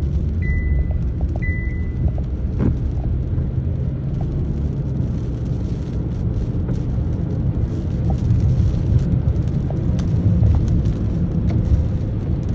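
Steady low rumble of a car driving on a wet road in storm rain and wind, heard from inside the cabin, with a few scattered clicks. Two short electronic beeps of the car's warning chime sound in the first two seconds.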